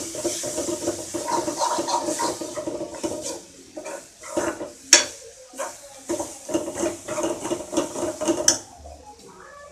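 A metal spoon stirring onion-tomato masala in a stainless-steel kadai, scraping and clinking against the pan with a ringing metal tone. There is one sharp clank about five seconds in, and the stirring stops with another clank near the end.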